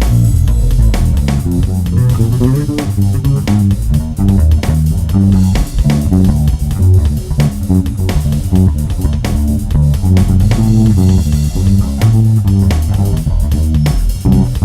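Bass guitar improvising a solo: a busy, fast-changing run of low plucked notes, with a drum beat underneath.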